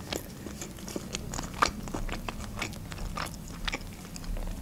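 A person chewing a mouthful of KFC Twister wrap with lips closed, close to the microphone: a run of irregular soft mouth clicks and crunches.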